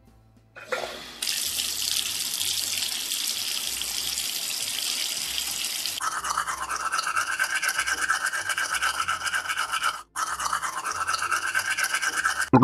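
Added sound effects for a toy bathroom: a steady hiss of a tap running from about a second in, then a toothbrush scrubbing in quick rhythmic strokes from about six seconds in, with a brief break about ten seconds in.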